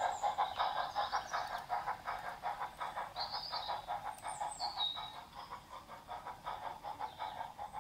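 G-scale model steam train running away along garden-railway track: a fast, even pulsing that grows fainter as it goes. A bird chirps briefly a couple of times midway.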